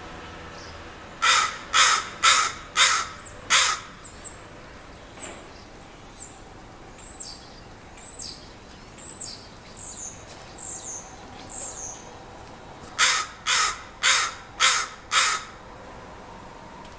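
Harsh, loud bird calls in two series of five, about two a second, with thin high downslurred calls about once a second between the series.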